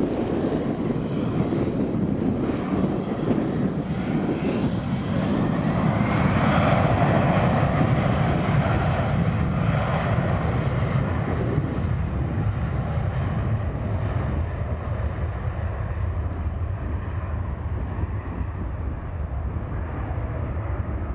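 Bombardier Global Express XRS business jet, its two Rolls-Royce BR710 turbofans spooling up to takeoff power with a rising whine about five seconds in. The jet noise is loudest as it passes, then fades slowly as the jet accelerates away down the runway.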